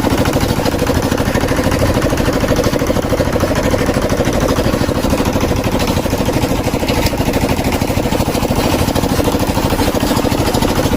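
A motor running loudly and steadily with a fast, even pulsing. It starts and cuts off abruptly.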